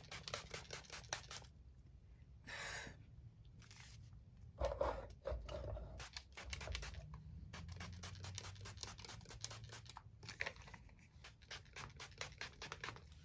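Heat protectant spray bottle misting onto hair in two short spritzes, about two and a half and four seconds in. Between and around them, faint rapid scratching and rustling of hands working through damp hair.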